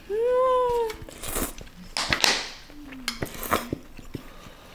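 A high hummed "mm" from a woman with a mouthful of pho noodles, rising then falling in pitch for most of a second. It is followed by several noodle slurps and a short, lower hum.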